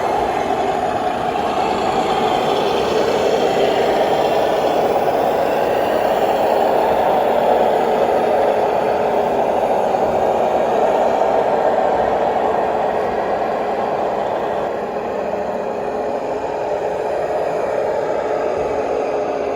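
1/16-scale radio-controlled Henschel army truck model running, with a steady engine-like drone whose pitch drifts slightly up and down.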